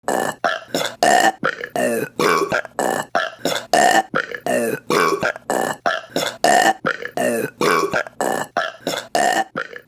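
Rapid string of short, loud women's burps, one after another at about two or three a second.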